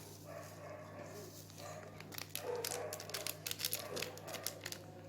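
Crinkling and rattling of a small paper vanilla sachet being emptied, a dense run of sharp crackles starting about two seconds in, over a steady low hum. A few short high-pitched vocal sounds come in among the crackles.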